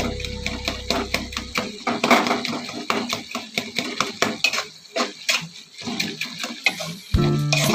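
Metal spoon stirring food frying in oil in a pan, scraping and clinking against the pan in many quick, uneven strokes.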